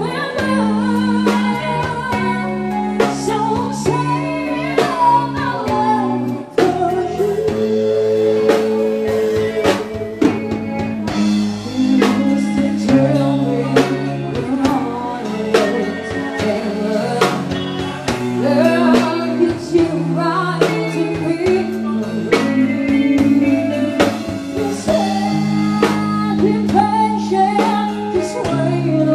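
Live band music: a woman singing a ballad into an amplified microphone, backed by guitar and a drum kit.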